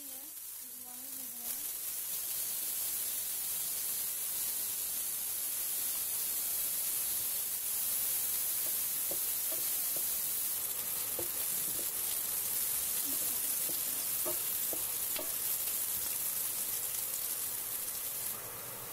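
Chopped onion, garlic and green chilies sizzling and frying in hot oil in a nonstick frying pan while a wooden spatula stirs them. The sizzle starts about a second and a half in, as they go into the oil, and holds steady, with a few short ticks partway through.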